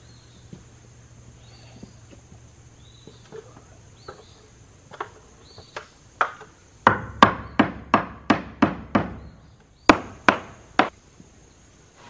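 Hammer driving nails into sawmill pine board siding: a few light taps, then a quick run of about nine strikes at roughly four a second, and after a short pause three more hard blows.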